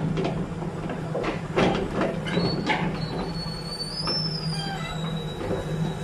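Lovol crawler excavator's engine running steadily as its steel tracks climb steel loading ramps onto a truck bed, with irregular metal clanks and a high metallic squeal from about two to five seconds in.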